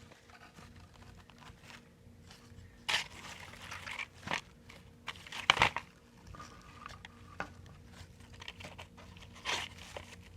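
Hands rummaging through a drawer of old zippers and odds and ends: scattered rustling and small clicks, with a few sharper knocks, the loudest about five and a half seconds in.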